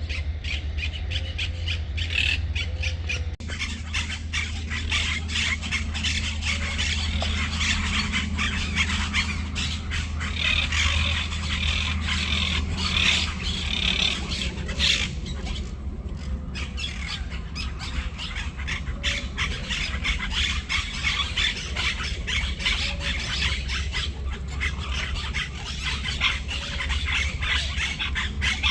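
A flock of birds chirping and squawking all at once in a dense, continuous chatter, over a steady low hum.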